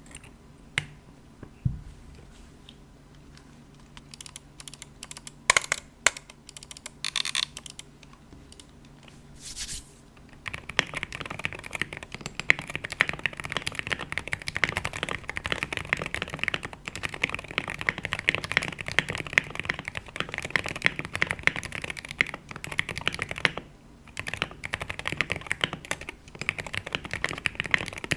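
Typing on a Wooting 60HE keyboard with Gateron Lekker magnetic switches and stock PBT keycaps in a foam-packed, o-ring-modded Tofu 60 Redux case. A few scattered single keystrokes come first, then from about ten seconds in, fast continuous typing with one short pause later on.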